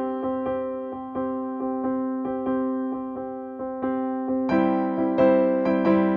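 Background music of gently struck keyboard notes and chords, growing fuller and louder about four and a half seconds in.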